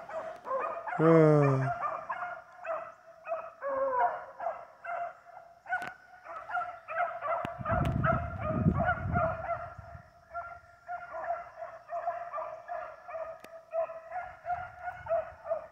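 A pack of beagles baying in full cry as they run a rabbit on its scent: many short, repeated barks and yips overlapping in a continuous chorus, with one longer falling howl about a second in.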